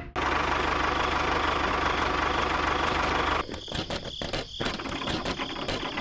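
Tractor engine running steadily with a fast low pulse. A little over three seconds in it turns rougher and patchier, with scattered clicks.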